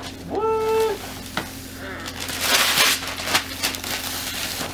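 Gift-wrapping paper being ripped and crinkled off a large cardboard toy box, in crackling bursts with a few sharp clicks. Near the start there is a short, high-pitched vocal sound.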